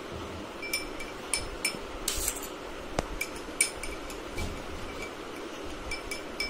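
A spoon clinking against the inside of a drinking glass of water as ghee is stirred into it: irregular light clinks, about two or three a second, each with a short glassy ring.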